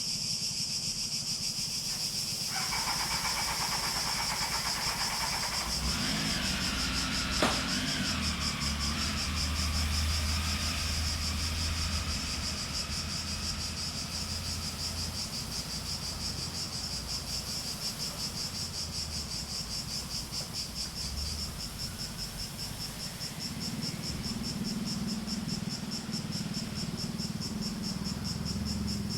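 A chorus of cicadas: a steady, high-pitched, finely pulsing drone. There is a single sharp click about seven seconds in, and a low rumble from about six to thirteen seconds in.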